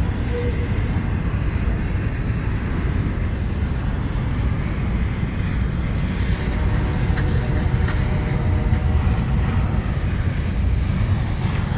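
Double-stack intermodal well cars rolling slowly past on the rails: a steady low rumble of steel wheels on track, with a few faint clicks midway through.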